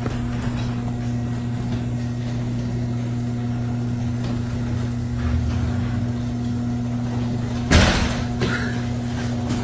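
Electric garage door opener running as it raises the roll-up door, a steady motor hum. About eight seconds in, a car door opens with a sharp clack.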